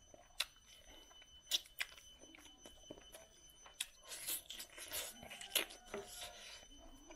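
Eating by hand from a steel plate: scattered sharp clicks and smacks of fingers, rice and lips, with chewing, and a busier stretch of smacking about four seconds in.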